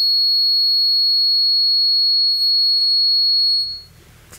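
A steady, high-pitched sine test tone of about 4,000 Hz from an online tone generator, held at one pitch. It cuts off abruptly near the end.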